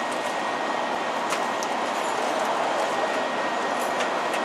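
Steady rushing background noise, with a few light clicks and crinkles of candy-bar packages being pushed into the spiral slots of a snack vending machine.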